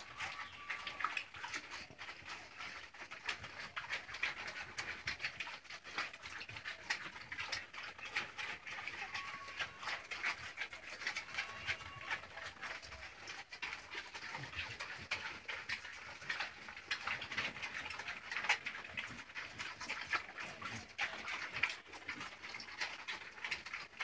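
Pigs munching chopped cabbage leaves: a steady run of quick crunching chews.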